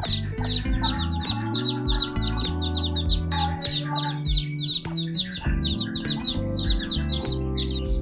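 Chicks peeping rapidly and continuously, many short high chirps a second, over background music with steady low notes.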